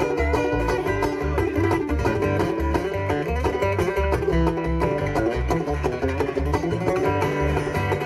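Live bluegrass trio playing: banjo picking over strummed acoustic guitar, with an upright bass plucking a steady beat underneath.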